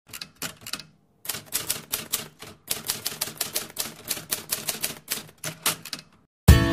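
Rapid typing clicks, a typewriter-style sound effect keeping time with on-screen text being typed out, in three quick runs with short pauses about a second and two and a half seconds in. The clicks stop just after six seconds and an acoustic guitar strum begins at the very end.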